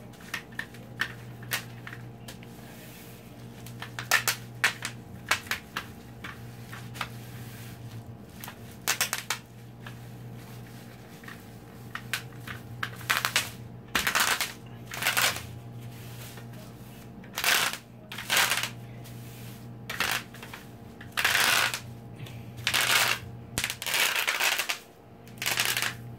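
Bubble wrap popping under a white tube rolled across it: scattered single pops at first, then, about halfway through, a string of short runs of rapid crackling pops. A steady low hum sits underneath.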